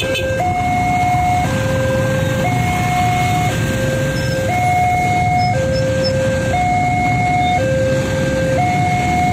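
Railway level-crossing warning alarm from the loudspeaker on the signal post: an electronic two-tone signal stepping between a low and a high note about once a second, over a steady low rumble of motorcycle engines.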